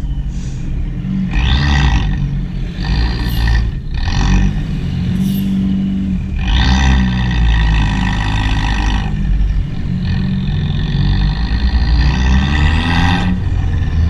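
Abarth 595's turbocharged 1.4 four-cylinder with an Akrapovic exhaust, revved repeatedly from a standstill and then pulling away slowly. There are five loud raspy rev surges, the last two longer, with the engine note rising and falling between them.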